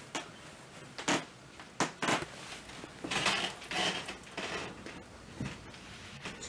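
Homemade cardboard Rube Goldberg machine running: a few sharp knocks and clatters of its parts and balls, with a longer rattling stretch around the middle.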